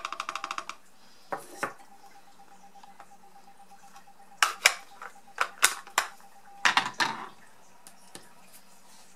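A clear acrylic stamp block tapped quickly a dozen or so times on a plastic ink pad, inking the stamp. Then a few knocks and, midway, a series of sharp plastic clicks as the ink pad case and acrylic block are handled and set down on the cutting mat.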